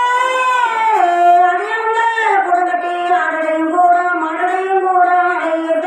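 Women's kulavai, the Tamil ritual ululation: a high, wavering cry held on one note, dropping lower about a second in and then wobbling up and down without a break.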